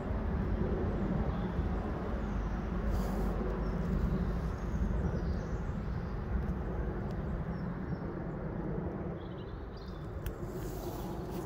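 Steady low outdoor rumble filling the air, with a few light crackles about ten seconds in.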